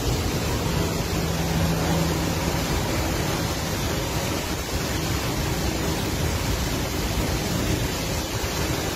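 Steady rain falling, a dense even hiss with no let-up.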